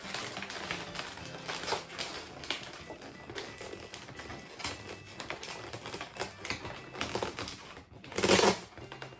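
Latex balloons rubbing and squeaking against each other as a long, thin twisting balloon is drawn through a tight gap in a balloon sculpture: a run of irregular small squeaks and crackles, with one longer, louder squeak near the end.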